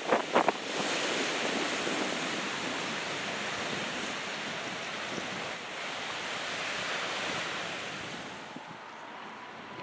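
Steady rushing noise of wind and ocean surf, easing slightly near the end.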